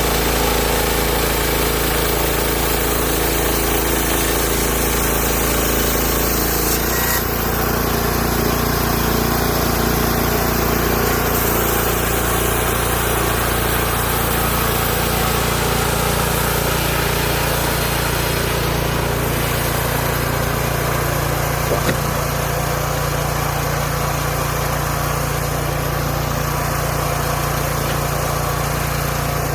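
Hudson Homesteader 30 band sawmill's engine running steadily with a continuous drone; its pitch changes about seven seconds in.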